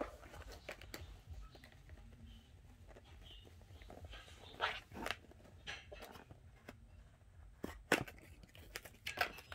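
Intermittent rustling and crinkling of things being handled, with a few sharper crinkles and taps about halfway through, near the end, and the loudest one shortly before that.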